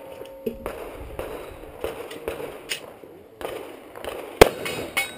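A single 9mm pistol shot from a Smith & Wesson M&P9 Pro about four seconds in, sharp and loud, amid a few faint knocks and rustles.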